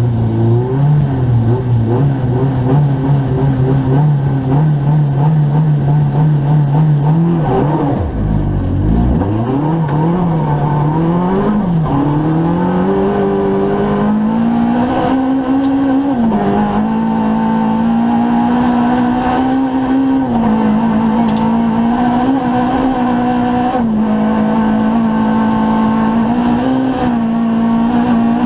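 Opel Corsa rally car's engine heard from inside the cabin. It is held at steady revs for the first eight seconds or so, then the revs drop sharply with a low thump as the car launches and climb in a series of rising sweeps through the gear changes. It then settles into a steady higher note broken by brief throttle lifts.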